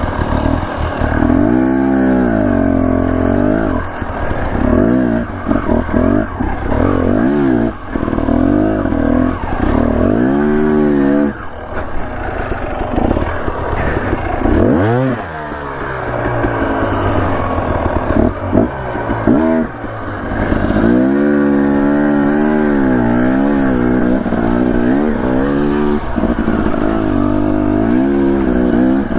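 Dirt bike engine revving up and down again and again as the throttle is worked on and off, with a few brief drops in level.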